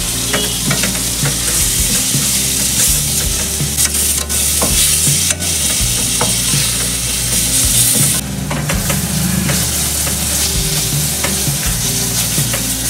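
Chopped tomatoes and spice masala sizzling in hot oil in a steel kadhai, stirred with a spoon that scrapes and clicks against the pan.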